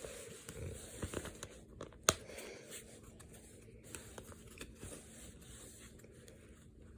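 Faint rustling and scattered clicks of a plastic 4K Blu-ray case and its paper inserts being handled, with one sharper click about two seconds in.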